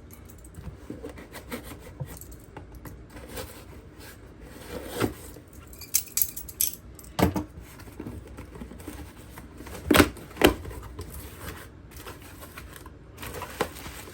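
A shipping package being handled and opened by hand: scattered clicks, knocks and rustling of packaging, with two sharp knocks about ten seconds in.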